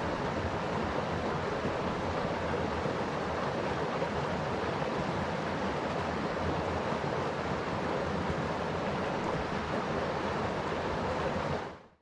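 Shallow stream running over a stony bed close to the microphone: a steady rush of flowing water, fading out near the end.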